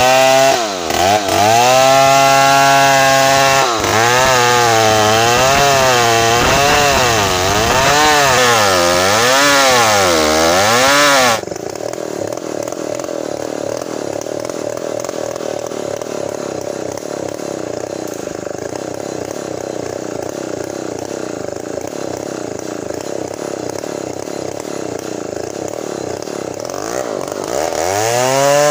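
Custom-assembled chainsaw ripping a red meranti log lengthwise, its engine pitch rising and falling again and again under load. About a third of the way in it changes abruptly to a quieter, steadier chainsaw sound, which grows louder and wavers again near the end.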